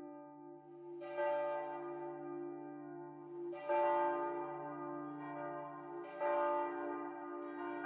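Church bell tolling slowly: three strokes about two and a half seconds apart, each ringing on into the next with a deep hum beneath.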